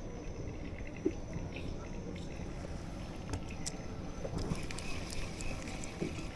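Steady low outdoor rumble, like wind and water around a moored boat, with scattered small clicks from handling fishing line and a spinning reel.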